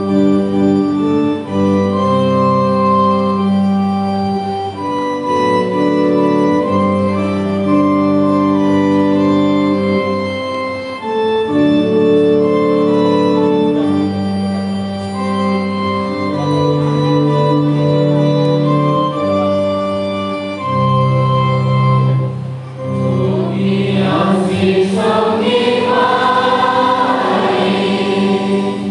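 Organ playing a hymn introduction in sustained, slowly changing chords; about 23 seconds in, the congregation starts singing the hymn over the organ.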